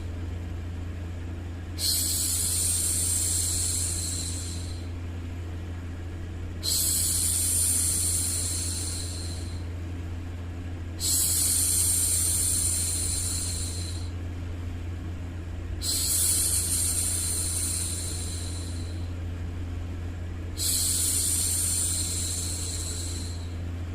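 A woman's drawn-out "shhh" hushing, made for soothing a baby, repeated five times about every four and a half seconds with each shush lasting about three seconds. Under it runs a steady low hum of background white noise.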